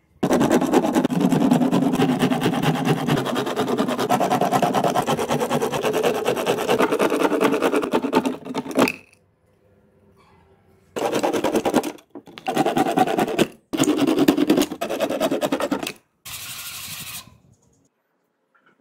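A power tool cutting grey PVC sheet with a fast, even buzz, one long run of about nine seconds, then four shorter bursts and a last quieter, hissier one.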